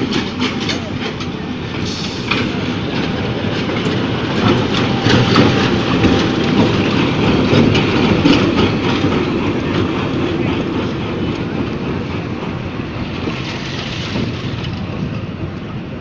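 Diesel-hauled passenger train rolling through the station, its wheels clacking over the rail joints. The clacking comes quickly in the first few seconds, and the rumble swells in the middle and then eases off as the train draws away.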